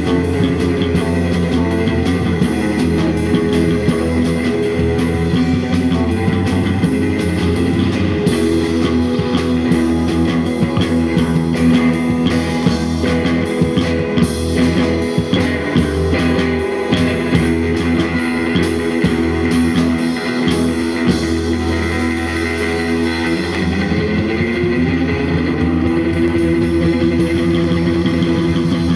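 Rock music led by guitar, with bass and a drum kit, playing steadily.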